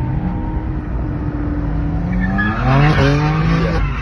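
Car engine heard from inside the cabin, its note climbing, with tyres squealing through a corner from about two seconds in for over a second.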